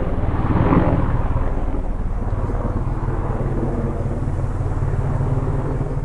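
Helicopter flying, its rotor and engine making a steady low rumble that swells briefly near the start and then slowly grows fainter.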